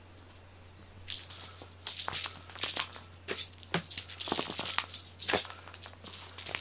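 Cat teaser wand's ribbon rustling in many quick bursts as it is flicked about and a cat bats at it, starting about a second in.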